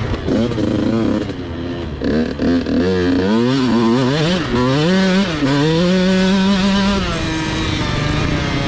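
2021 Husqvarna TC 85 85cc two-stroke single-cylinder engine, ridden hard, revving up and down in pitch again and again. It holds a steady high note for a moment near the end, then drops off. The reed cage has cracked reed petals, a fault that makes this bike run rough and start hard.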